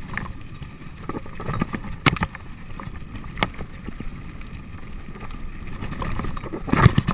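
Mountain bike rolling fast down a stony dirt trail: tyres crunching over dirt and stones and the bike rattling over bumps, with wind on the microphone. Sharp knocks about two and three and a half seconds in, and a louder jolt near the end.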